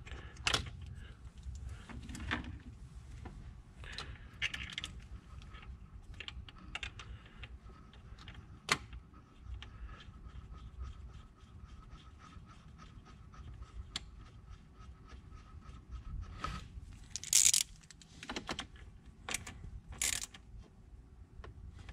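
Hand ratchet clicking in runs as bracket bolts are tightened by hand, with a few louder metallic clinks of the socket and tools near the end.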